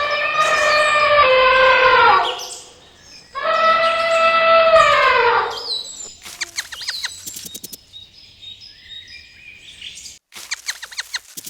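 Two long, loud animal calls, each about two seconds and dropping in pitch at the end, followed from about six seconds in by quieter bird chirps and rapid trills.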